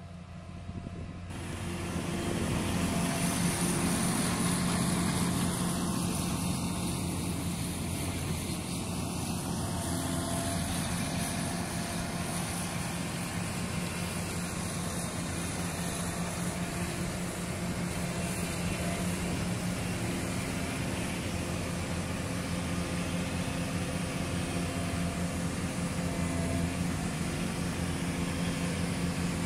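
New Holland TC5070 combine harvester's diesel engine running steadily as the machine drives up close. It grows louder over the first two or three seconds, then holds a steady, even drone.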